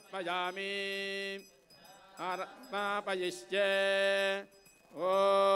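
A single voice chanting a devotional mantra during a puja, in sung phrases of a few short gliding syllables, each ending on a long held note, three times.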